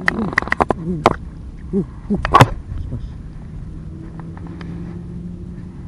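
Wind buffeting a chest-mounted action camera's microphone. Sharp clicks and knocks of handling come in the first couple of seconds, with a few short wordless hums from a voice. A steady low hum sits under the wind in the second half.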